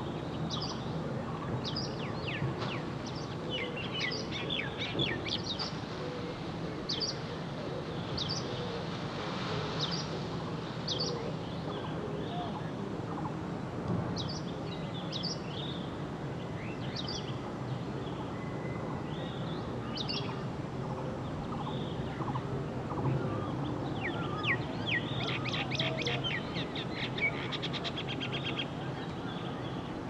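Wild birds chirping in forest and farmland: short separate calls scattered through, and a quick run of rapidly repeated notes near the end, over steady low background noise.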